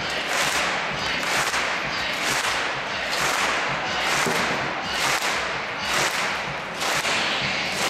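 Music with a steady beat, sharp percussive hits coming about twice a second over a low rumble.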